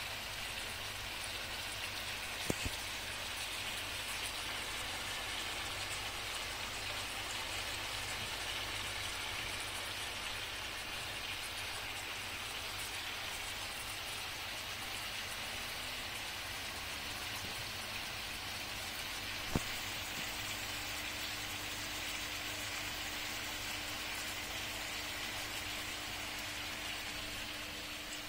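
Chicken sizzling as it fries in a sac pan, a steady even sizzle, with two sharp clicks along the way.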